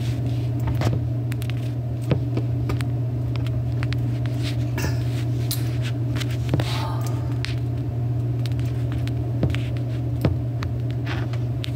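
Steady low machine hum, with scattered light clicks and taps over it.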